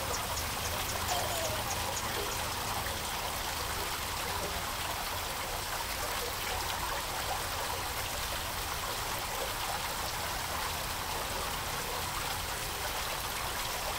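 Water running steadily through a garden fountain and its open stucco channel, a continuous trickling and splashing.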